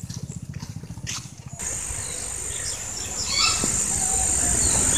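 A small engine runs with an even beat for about the first second and a half. After a sudden change, insects keep up a steady high-pitched drone, with short bird chirps over it.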